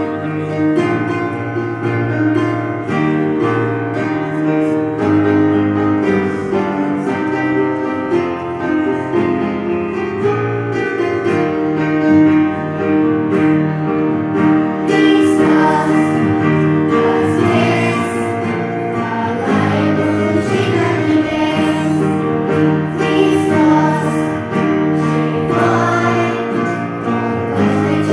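Children's choir with instrumental accompaniment: the accompaniment plays alone for the first half, then the children start singing about halfway through.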